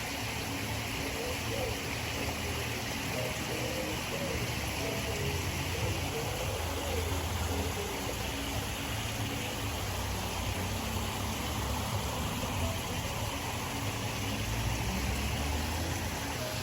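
Running water of a small stream, a steady rush over a low rumble.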